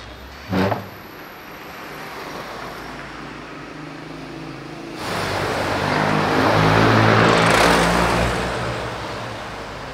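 Town street traffic with a low engine hum. From about five seconds in, a car passes close by: its engine and tyre noise swell to a peak and fade away. A short thump comes just after the start.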